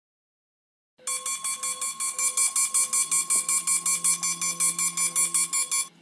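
A wake-up alarm going off, beeping in rapid, even pulses of about four a second. It starts about a second in and cuts off just before the end.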